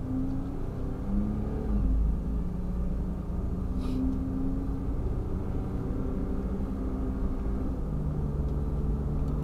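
Engine and road noise of a kei van, heard from inside the cabin while it drives along a road. The engine note shifts in pitch a few times.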